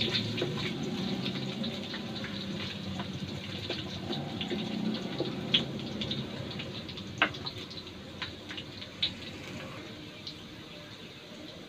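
Cubed potatoes frying in hot oil in a stainless steel wok: a steady sizzle with scattered sharp pops and crackles, and the wooden spatula knocking and scraping against the wok while stirring. The sizzle gets gradually quieter in the second half.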